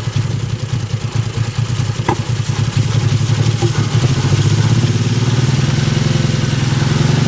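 Lexus 2JZ-GE inline-six engine running with an uneven, stumbling beat for the first few seconds, then evening out and running steadily. The stumble is a misfire on cylinders 1 and 6 that the owner finds only at low rpm, clearing above about 1200 to 1400 rpm, with no spark at those cylinders at idle.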